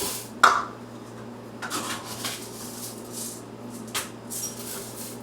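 Dry rice poured into a rice cooker pot in several short hissing pours, with a couple of sharp clicks.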